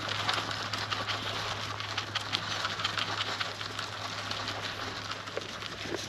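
Poll Dorset sheep eating a barley and pellet mix from a metal trough close by: many small, irregular crunching and clicking sounds as the grain is chewed and nosed about.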